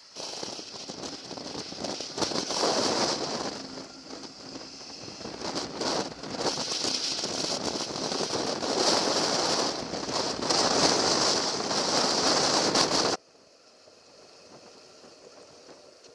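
Wind and road noise rushing over a camera on a moving motorcycle, rising and falling in strength. It cuts in suddenly just after the start and cuts off suddenly near the end.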